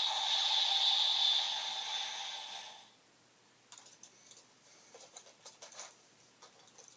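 Electronic sound effect from a Kamen Rider toy gadget's small speaker, playing and then fading out about three seconds in. After it come faint clicks and rattles of plastic toy parts being handled.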